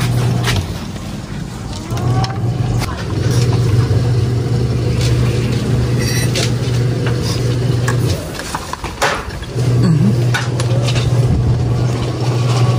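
A motor vehicle engine running with a low steady hum that cuts out and comes back a few times. Over it are sharp clicks and knocks as the toy bolt-action gun is handled, including a quick run of clicks about six seconds in.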